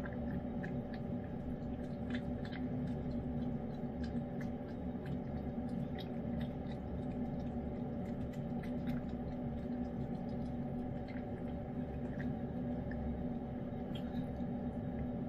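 A cat chewing and licking wet pâté cat food, heard as irregular faint small clicks and smacks over a steady low drone.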